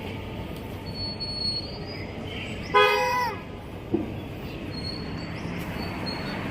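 A cat meows once, a drawn-out call that falls in pitch at its end, over a steady background hiss. A short knock follows about a second later.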